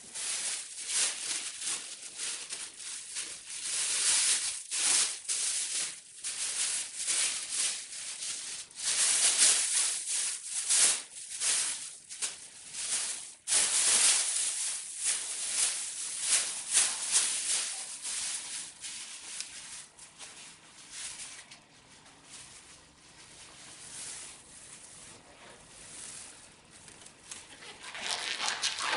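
Thin disposable plastic apron crinkling and rustling as it is unfolded and put on, in many quick bursts. It goes quieter for a while, and near the end there is a short louder rustle as a disposable glove is pulled on.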